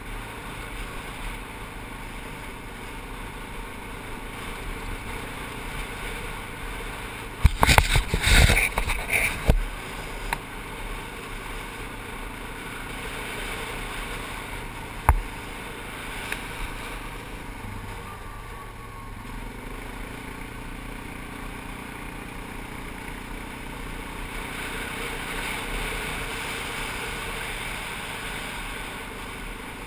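A 4x4 ATV's engine running steadily while riding along a gravel road. About a quarter of the way through there is a burst of loud knocking and rattling, the loudest sound, and a single sharp knock comes about halfway. A little past the middle the engine note shifts lower.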